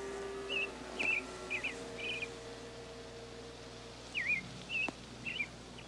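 Small bird chirping: short, high, quick notes in two clusters of about four, one in the first two seconds and one near the end. Soft held music notes sound underneath.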